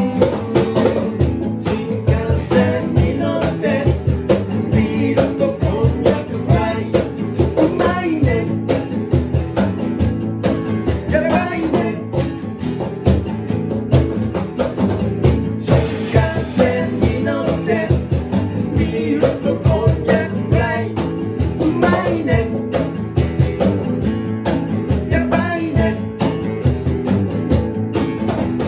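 A small acoustic band playing a song: guitars strumming chords over a cajón beat, with a singer's voice at times.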